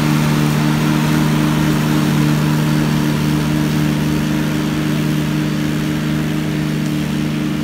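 McConnel Robocut tracked flail mower running under load, its engine and spinning flail head giving a steady, even-pitched hum over a rushing noise as it cuts dry grass and scrub. The sound eases slightly as the machine moves away.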